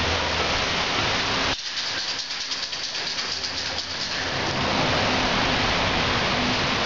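Steady rushing noise of rain and wind, with a low hum underneath. From about one and a half seconds in, the low rumble drops away for a couple of seconds, leaving only a high hiss, then comes back.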